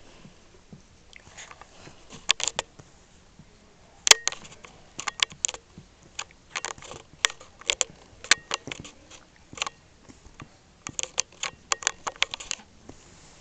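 Felt-tip marker writing on paper: an irregular run of short, sharp scratches and taps as the letters are stroked out.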